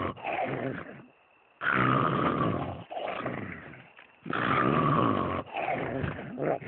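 Cartoon character snoring: two loud rattling snores about 2.7 s apart, each a long rasping in-breath followed by a shorter out-breath that falls in pitch.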